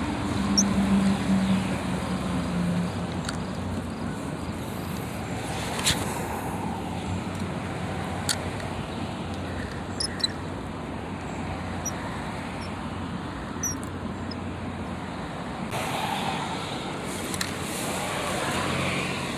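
Steady background noise of distant road traffic, with a low hum in the first few seconds and a few isolated sharp clicks.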